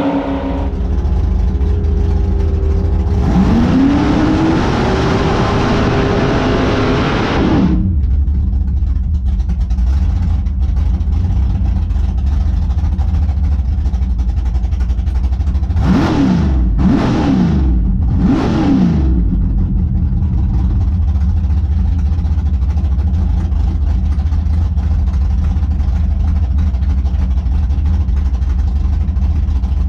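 Drag race car's engine, heard from inside the car. It revs up and holds high for about four seconds over a loud hiss that cuts off suddenly, then settles to a heavy, low idle. About halfway through it gets three quick throttle blips, each rising and falling, then goes back to idling.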